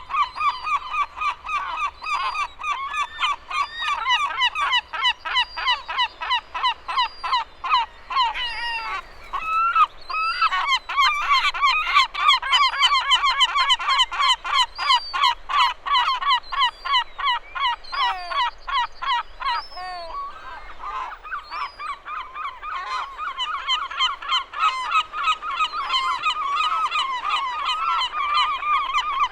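Many gulls calling at once: a dense, overlapping chorus of short harsh calls, several a second, busiest in the middle, with a couple of longer calls falling in pitch a little after that.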